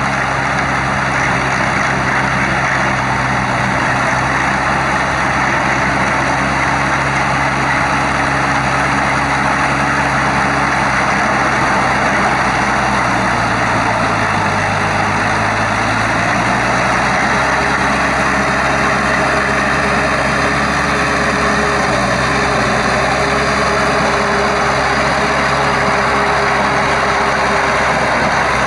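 Shibaura V52F tractor's 52-horsepower four-cylinder diesel engine running steadily under load as it pulls a rotary tiller through a wet rice paddy. The engine note dips briefly about halfway through, then recovers.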